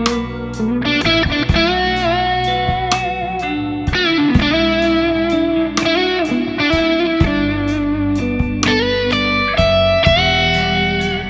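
Electric guitar with humbucking pickups (a Soloking MS-1 Custom 24 HH) playing a sustained lead melody with string bends and vibrato, lightly overdriven. It plays over a backing track with a steady bass and a beat ticking about twice a second.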